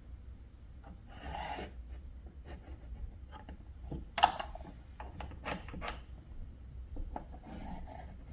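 Pencil scratching on drywall in short rubbing strokes, marking the outline of an electrical switch box on the wall. A single sharp tap or click comes a little past the middle.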